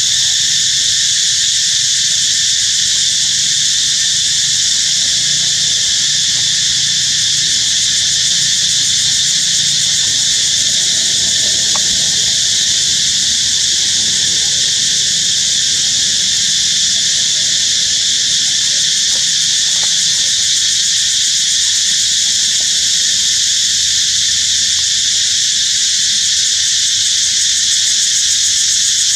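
Loud, steady chorus of insects, a dense high buzzing that holds without a break.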